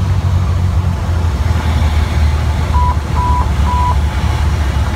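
Cessna Skyhawk's piston engine and propeller drone steadily, heard inside the cabin. A little before halfway, three short electronic beeps sound about half a second apart.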